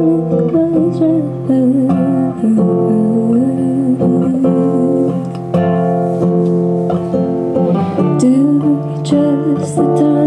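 A woman sings to her own acoustic guitar. The voice drops out for a few seconds in the middle while the guitar plays on alone, then comes back near the end.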